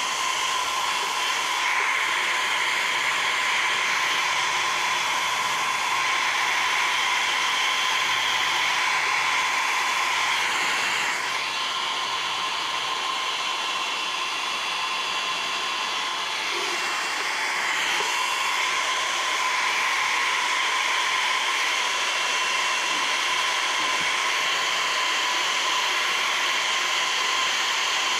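Philips hair dryer running steadily as hair is dried: a steady rush of air with a high whine, dipping a little in level for a few seconds around the middle.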